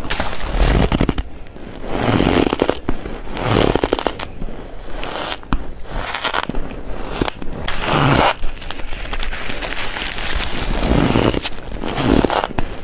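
Close-up crunching of crumbly, powdery frozen ice being bitten and chewed: dry, squeaky crunches with a dense crackle, a stronger crunch every second or two.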